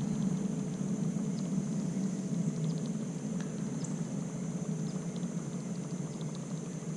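Whopper Plopper 75 topwater lure being retrieved across the pond surface, its spinning tail churning the water in a steady low gurgle, with a steady high insect drone behind it.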